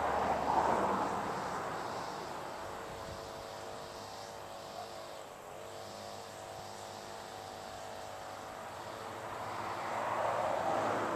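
Distant airplane drone: a steady low hum of several faint tones under a rushing noise that swells near the start and again near the end.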